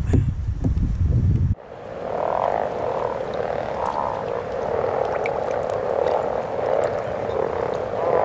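A low rumbling noise for about a second and a half, then an abrupt cut to a dense chorus of many frogs calling together, a steady din with repeated swells.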